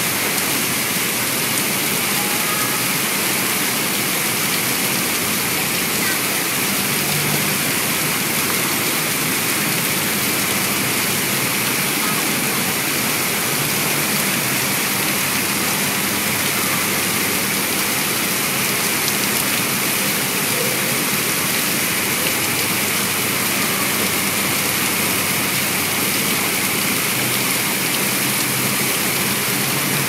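Steady, even rush of water falling and spattering onto a koi pond's surface.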